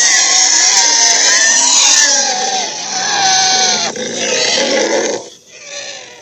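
Dragon roar sound effect: a loud, rough growling roar whose pitch wavers up and down. It breaks off about four seconds in, then trails away.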